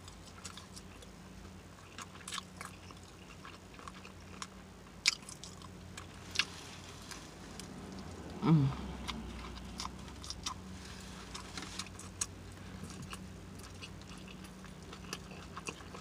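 Close-up mouth sounds of a person biting and chewing a soft sub sandwich, with wet lip smacking and small clicks throughout. A brief hum, falling in pitch, comes about eight and a half seconds in.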